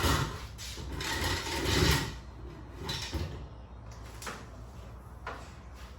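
Rustling and clunking of tools and parts being handled and set down, loudest about two seconds in, followed by a few lighter knocks.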